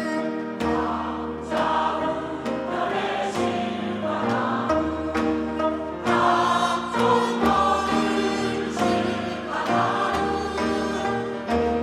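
Church choir singing a hymn in Korean traditional gugak style, with instrumental accompaniment under it, including sustained low bass notes that change every second or two.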